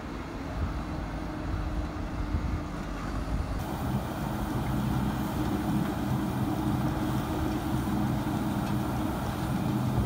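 Engine machinery running: a low, uneven rumble of a backhoe loader at work, then, from about three and a half seconds in, the louder, steady engine hum of a self-propelled brick-laying machine on the move.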